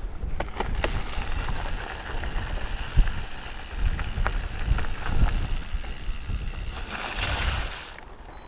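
Mountain bike riding over rough trail: a low rumble of wind buffeting the microphone and tyres on the ground, with scattered knocks and rattles from the bike. A brighter hiss swells just before the end, then the rumble drops away.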